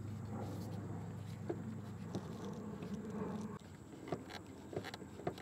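Scattered light clicks and rattles of hand tools loosening a worm-gear hose clamp and working the diesel fuel hose off its fitting. Under them runs a steady low hum that stops about three and a half seconds in.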